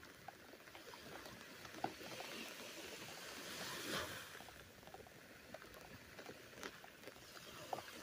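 Light rain pattering: faint, scattered drop taps over a soft hiss, which swells briefly about four seconds in.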